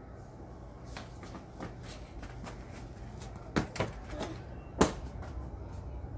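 A handful of scattered sharp knocks and taps, the two loudest about three and a half and five seconds in, over a low steady rumble.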